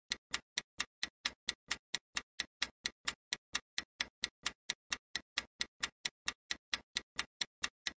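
Clock-ticking countdown sound effect: quick, even ticks, about five a second, marking the time left to answer a quiz question.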